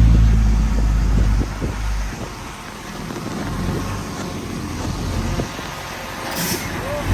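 Heavy diesel engine of earthmoving machinery running, loudest for about the first two seconds and then lower, with scattered knocks and rattles.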